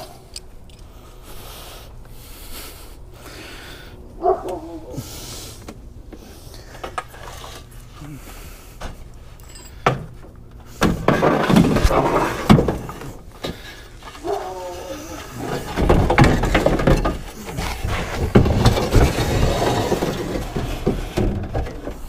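Aluminum ladders used as loading ramps clattering and scraping as they are handled and slid into a pickup truck bed, loud and continuous from about halfway through. Before that there are only light clinks of handled hardware.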